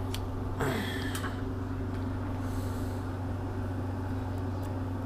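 Steady low mechanical hum with a droning tone, and a brief rustle of handling about a second in.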